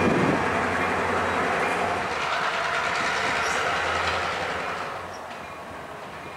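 Diesel locomotive hauling a passenger train past, its engine's steady low drone over the rumble of wheels on the rails; the sound drops off after about five seconds.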